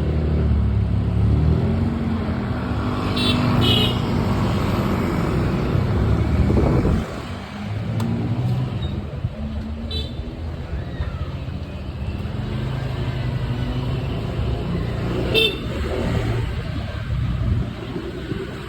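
A motor vehicle engine running, its pitch rising and falling, with road traffic noise. It is louder for the first seven seconds and drops a little after that. A few short high-pitched toots come through, around three to four seconds in and again near ten and fifteen seconds.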